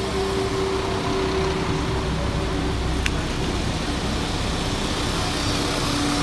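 West Midlands Railway Class 172 Turbostar diesel multiple unit rolling slowly into the platform, its diesel engines running with a steady hum. A single sharp click about three seconds in.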